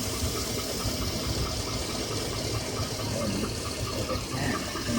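2007 Chevrolet Avalanche V8 engine idling with a steady, rapid clicking of about four to five ticks a second. The owner says the lifters were already replaced and the noise has been traced to the number 5 piston: knock or piston slap.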